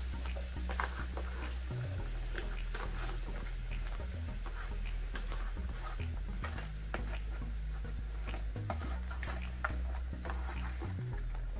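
Light crackling and popping of chopped onion and whole cumin and carom seeds frying in ghee and oil in a small pot, many small irregular pops over a steady low hum.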